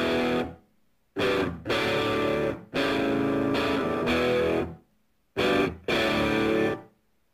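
Guitar music played in short phrases that start and stop abruptly, with brief silent gaps between them.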